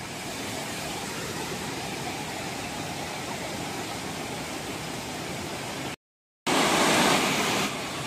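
Steady rushing of a waterfall's white water pouring over rock slabs and a small weir. About six seconds in, the sound cuts out completely for half a second, then comes back louder and hissier for about a second before settling.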